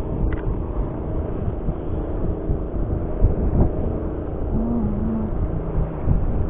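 Strong wind buffeting the microphone: a steady, uneven low rumble.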